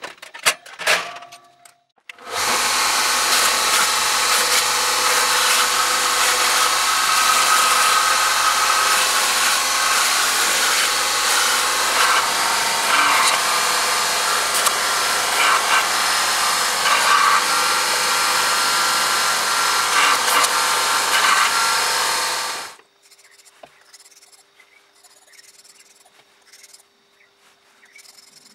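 Scheppach BGS 700 belt sander running while a steel knife blade is held against its sanding belt and ground, a loud steady grinding that stops suddenly about 23 seconds in. A few metal clinks come before it starts, and quieter strokes of the blade on a sharpening stone follow it.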